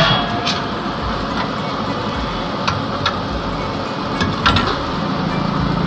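Steady noisy din of a street food stall, broken several times by short sharp clinks of a steel ladle against steel pots and plates as chhole are served.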